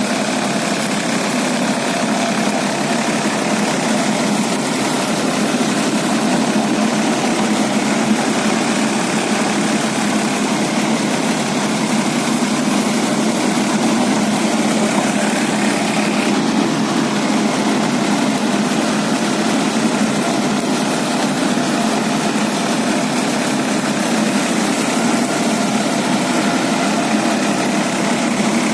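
A tractor-drawn baler at work, its engine running steadily without change.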